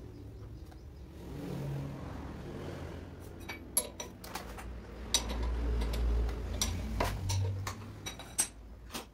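Crankcase splitter's forcing screw being turned to press the crankshaft out of a Kawasaki Ninja RR two-stroke crankcase half: a low grinding rumble at first, then from about three seconds in a run of sharp, irregular metallic clicks and ticks as the tool and shaft work loose.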